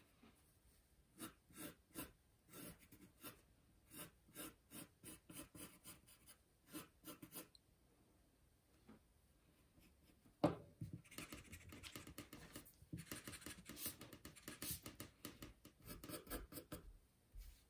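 Faint sound of a graphite pencil sketching on paper: short scratchy strokes, a brief pause, then a single knock about ten seconds in, followed by quicker, denser strokes.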